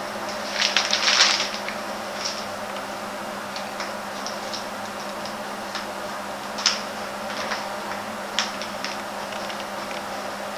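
Paper wrapping around a bouquet of flowers, crinkling: a burst of rustling about half a second to a second and a half in, then scattered single crackles, over a steady faint hum.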